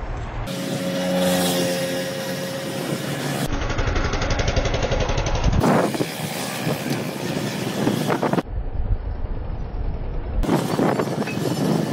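Road traffic and vehicle engine noise along a busy town street, in short segments that change abruptly every few seconds. A steady pitched drone runs through the first few seconds.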